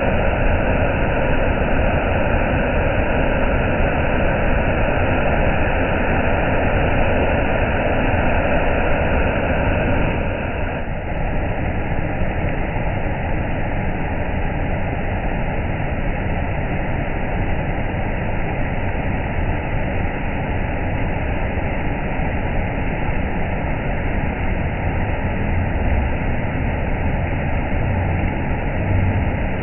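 Steady, dense rush of a waterfall. About eleven seconds in it changes to a slightly quieter rush of water flowing and foaming over rock slabs.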